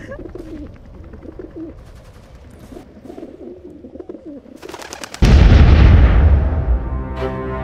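A dove cooing softly, then a quick rattle of gunfire and a loud explosion about five seconds in that rumbles and dies away.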